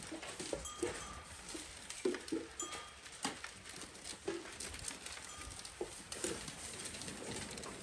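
A herd of goats crowding at grain pans: many short clicks and shuffles of hooves and munching, with a few brief low bleats scattered through.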